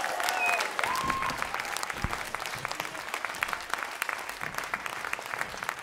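Audience applauding after the concert's final number, with a few cheering shouts in the first second.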